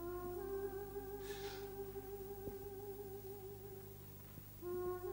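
Background music from the drama's score: one long held note, followed by a new note starting just before the end.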